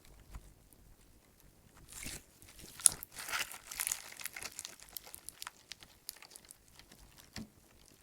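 Clear slime packed with small flower-shaped clay chips being squeezed and worked by hand, giving crunchy crackles and small pops as air bubbles burst and the chips grind against each other. Busiest and loudest from about two to five seconds in, with one sharp click near three seconds.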